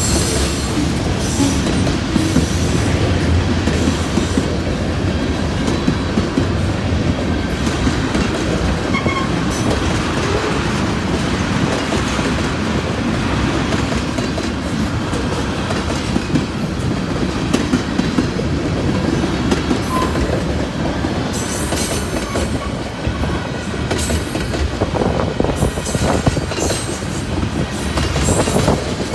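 Norfolk Southern freight cars rolling past close by: a steady rumble of steel wheels on the rails, with scattered clacks throughout and more of them near the end.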